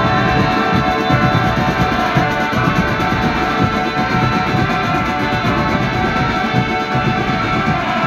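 Marching band playing: steady held horn notes over fast, continuous drumming from the drum section.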